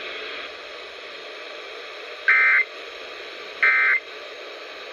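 Emergency Alert System end-of-message data bursts heard over an FM radio: two short, identical buzzy bursts about 1.4 seconds apart, beginning about two seconds in, over steady radio hiss. They are the coded signal that closes the alert after the drill message.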